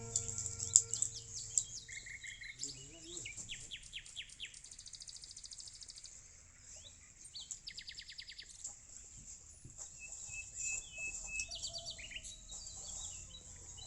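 Small birds chirping, with quick sweeping notes and rapidly repeated trills, over scattered small clicks. A snatch of music stops about half a second in.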